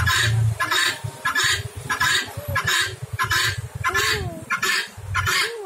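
Female helmeted guineafowl calling: a harsh, grating "kok" repeated about twice a second.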